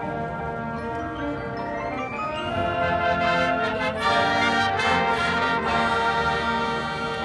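Marching band playing: brass holding sustained chords with mallet percussion, swelling louder about two and a half seconds in.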